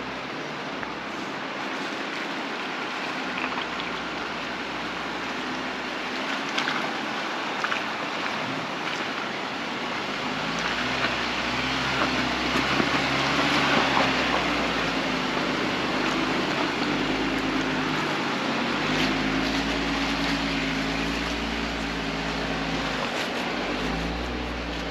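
Jeep Wrangler JL Rubicon crawling along a rocky off-road trail on aired-down tyres: the engine runs at low revs with its pitch rising and falling, over a noisy wash of tyres on stone, with scattered small knocks and clicks. The noise swells for a few seconds about halfway through.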